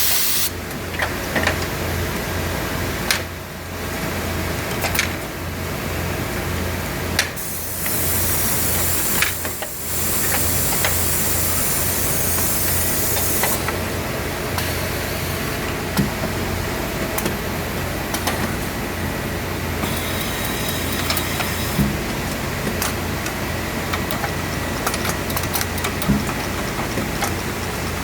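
SAN Tornado LT 2 sock knitting machine running its toe-closing sequence: a steady pulsing mechanical hum with scattered clicks, and a loud hiss of air about eight seconds in that stops near the middle.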